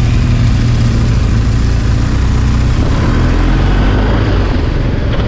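BMW R 1250 GS boxer-twin motorcycle engine running as the bike pulls away from a stop into traffic, its pitch rising about halfway through as it picks up speed.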